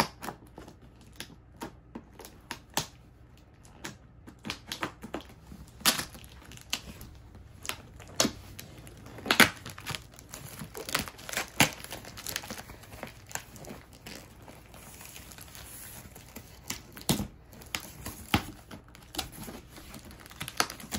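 Cardboard fan box being pried open with a screwdriver and its packing tape torn off: irregular sharp snaps, scrapes and crinkling of cardboard and tape, with a stretch of softer rustling about two-thirds of the way through.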